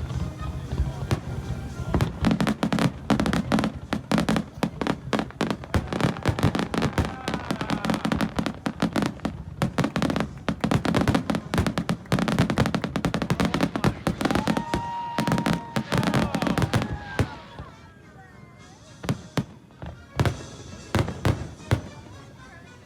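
Fireworks display: a rapid, dense barrage of bursts and crackling that thins out about three quarters of the way through, then picks up again with scattered bursts near the end.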